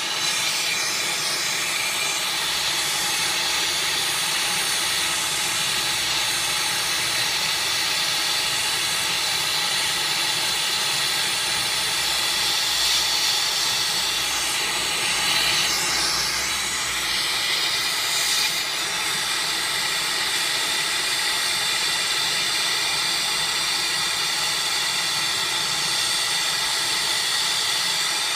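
Soldering torch flame hissing steadily on the coil of a PTAC air conditioner during a leak repair, its tone shifting slightly about halfway through.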